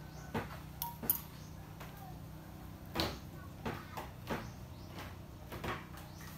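A metal spoon clicking and knocking against a metal tin, a scattering of light separate clicks over a steady low hum.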